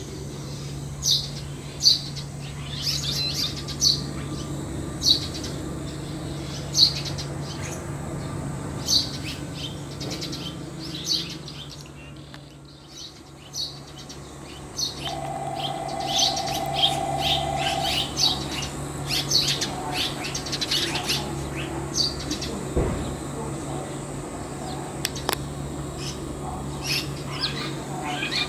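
Red-rumped swallows chirping: short, high calls repeated throughout, coming in quicker clusters from about halfway through.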